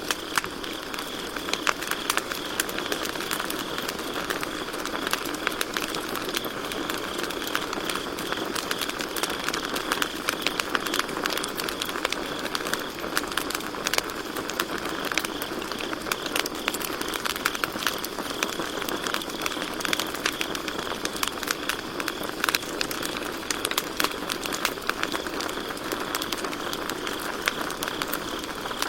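Campfire crackling and popping continuously over a soft steady hiss of burning wood, with crickets chirping in a steady high band behind it.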